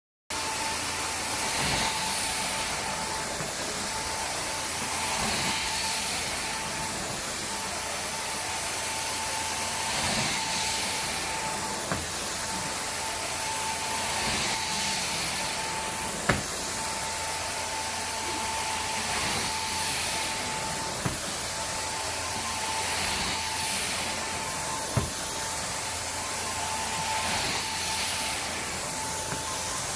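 Carpet-cleaning machine running with a steady whine and hiss, the sound swelling and easing every four or five seconds as the tool is worked back and forth over the carpet, with a few faint clicks.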